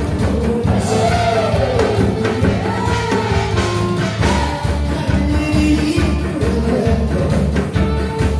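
Amplified singing over band music with a steady drum beat, the sung melody sliding between held notes.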